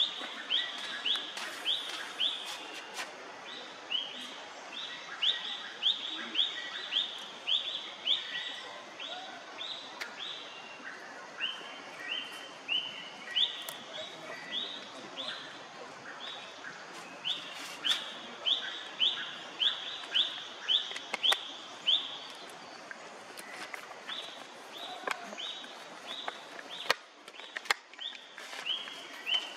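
A bird calling a long series of short, high, clear notes, about two a second, pausing briefly now and then, over a faint steady background hiss.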